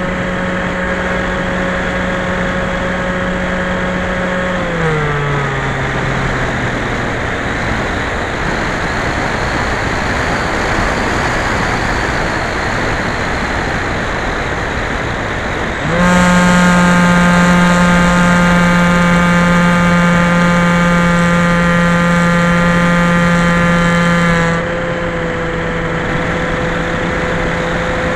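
Skyhunter FPV plane's electric motor and propeller humming steadily over rushing wind. The hum slides down in pitch and fades about four seconds in as the throttle is cut for a glide, returns louder and higher a little past halfway, and eases off slightly near the end.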